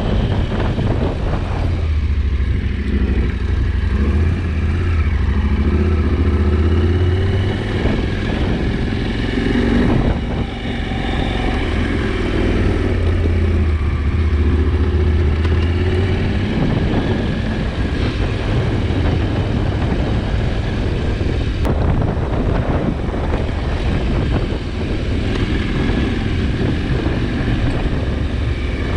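KTM 790 Adventure's parallel-twin engine running as the motorcycle is ridden, its note rising and falling with the throttle.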